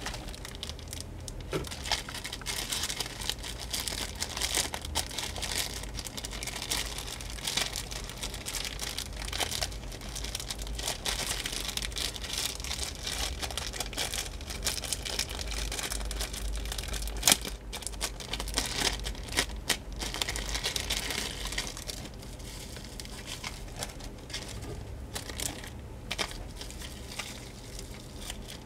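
Thin plastic bag and clear plastic wrapping crinkling and rustling as hands rummage and unwrap a small packaged item, with scattered sharp crackles.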